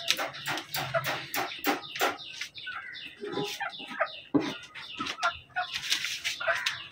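Domestic hens clucking, a quick run of short clucks and calls throughout.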